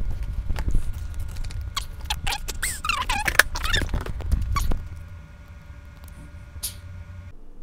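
Handling noise of a plastic moss pole packed with sphagnum moss being set and pressed into potting mix: rustling and small clicks, with a run of squeaks about three seconds in.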